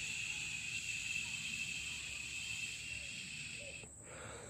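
Steady, high-pitched insect buzzing that cuts off suddenly about four seconds in.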